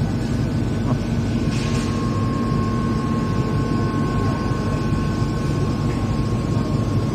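6 kW fiber laser cutting machine running, cutting stainless steel sheet with compressed-air assist: a loud, steady machine rumble, a short hiss about one and a half seconds in, then a thin steady whine almost to the end.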